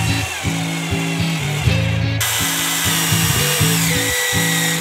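Cordless drill driving screws into Douglas fir boards, its whine getting louder about two seconds in and sliding down in pitch as the screws bite, over background music.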